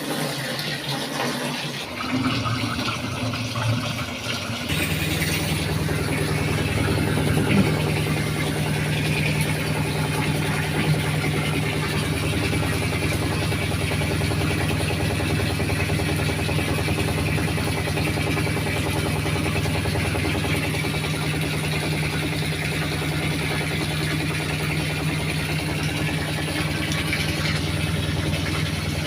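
Single-tub washing machine's electric motor starting about five seconds in and then running with a steady low hum.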